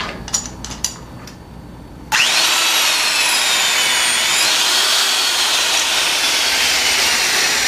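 A few light clicks. Then, about two seconds in, an electric shear wrench's motor starts suddenly and runs loud, its whine falling slowly in pitch. It is doing the full tightening of an M20 tension-control bolt's nut toward the point where the pintail shears off.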